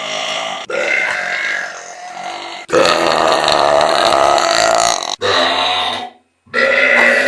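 A girl's long, loud, drawn-out burps, several in a row, spliced together with abrupt cuts between them. The longest and loudest runs for about two and a half seconds, starting near three seconds in.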